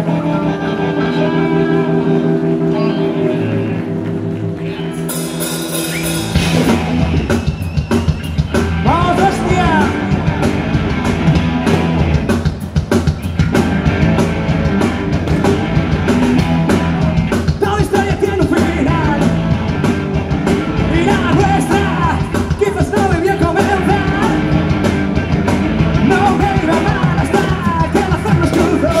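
Live rock band playing: held chords for the first few seconds, then a cymbal crash about five seconds in as the full band comes in with a driving drum kit and electric guitars, and a male lead singer joins a few seconds later.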